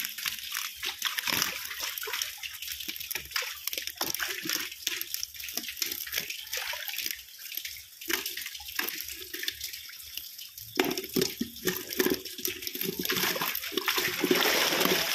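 Tilapia thrashing and flapping in shallow water and being grabbed by hand into a plastic basket: many short irregular splashes over a running watery hiss, growing busier in the last few seconds.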